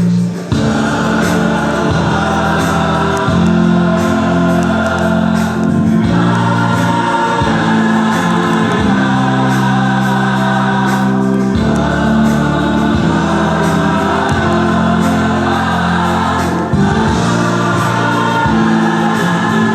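Gospel song: voices singing over held chords that change every second or two.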